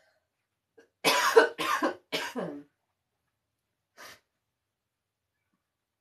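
A person coughing three times in quick succession, with one fainter cough about four seconds in.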